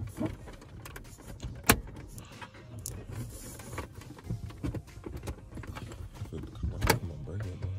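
Plastic overhead dome-light lens of a 2014 Dodge Charger being worked loose and pried out by hand: small plastic clicks and rattles, with two sharp snaps, one about two seconds in and one near the end.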